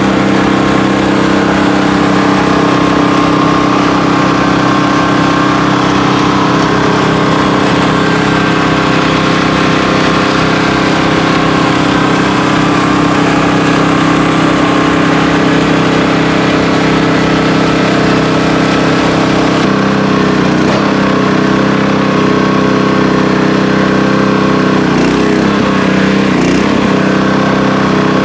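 Engine of a portable sawmill running steadily at a constant speed, with a brief wavering in pitch a few seconds before the end.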